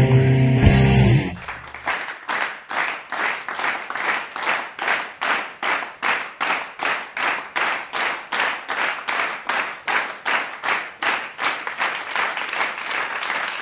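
Heavy rock music with electric guitar cuts off about a second in. Then an audience claps in time, about three claps a second, under a wash of applause.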